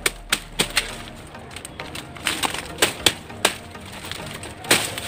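Sharp cracks and snaps of palm leaf stalks and undergrowth being cut and broken off a buri palm, about ten separate snaps with the loudest near the end.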